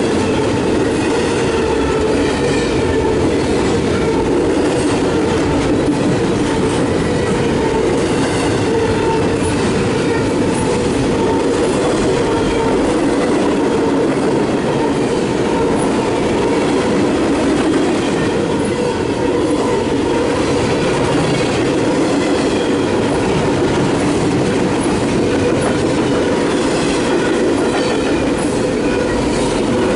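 CSX double-stack intermodal well cars rolling past at speed: a steady, loud rumble of steel wheels on rail, with faint repeated clicks from the wheels and a thin high ringing tone.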